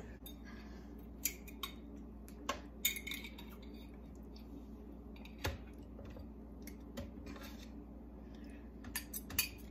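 Scattered light clinks and taps of a metal fork against a glass pickle jar and the food processor bowl as pickles are fished out and dropped in.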